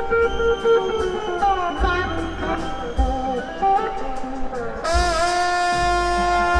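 Live rock-blues band playing: electric slide guitar lines gliding between notes over drums and bass, then a long held note from about five seconds in.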